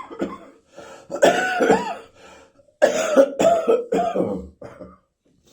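A person coughing in chesty, throaty bouts, with the voice sounding through each cough. There is one long hacking cough about a second in, then a run of about four quick coughs from about three seconds in, stopping shortly before the end.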